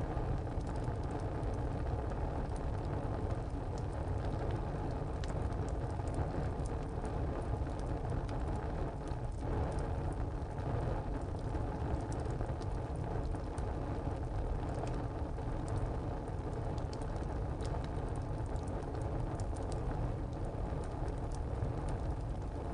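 Wood fire burning inside a tile stove: a steady low rush of flame with frequent small crackles and pops from the burning wood.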